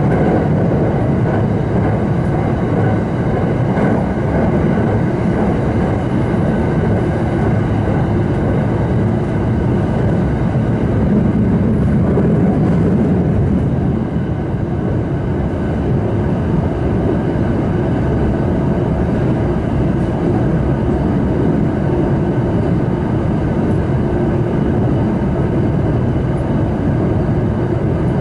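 Steady running noise of a Rapid Marine Liner electric train heard from inside a passenger car at speed: a continuous low rumble of wheels on rail and car body, with a slight dip in level about halfway through.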